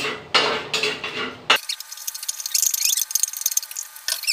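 Fried rice stir-frying in an oiled skillet on a gas burner: a spoon scrapes and stirs through the rice for about a second and a half, then it changes suddenly to a steady fine crackling sizzle.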